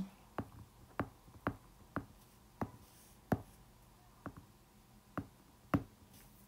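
Stylus tip tapping and clicking on a tablet's glass screen while handwriting figures: about a dozen short, sharp ticks at an uneven pace.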